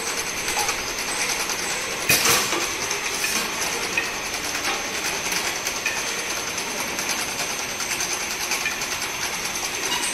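Machinery running: a steady mechanical rattle with fast, fine ticking, and a brief louder burst of noise about two seconds in.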